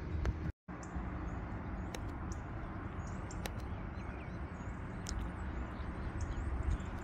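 Outdoor city ambience: a steady low rumble of distant traffic and wind, with faint high bird chirps and a few light clicks. The sound cuts out for a moment about half a second in.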